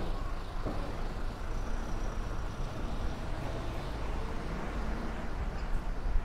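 Steady urban background noise, a low rumble with a hiss, with no single sound standing out. A faint high tone runs for about a second and a half, starting about a second and a half in.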